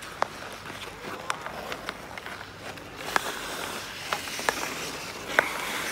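Bandy sticks hitting the ball as players pass it on ice: about seven sharp clacks at irregular spacing, the loudest near the end. Under them runs the scrape of skates on the ice, which grows louder about halfway through.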